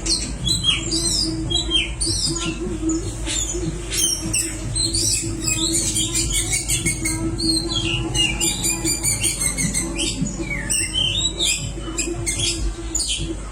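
Oriental magpie-robin (kacer) singing a long run of rapid, varied whistles and chattering phrases, over a steady low hum.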